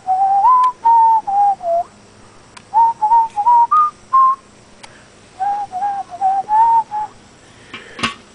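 A whistled tune in three short phrases of clear single notes, stepping up and down in pitch, with a brief sharp noise near the end.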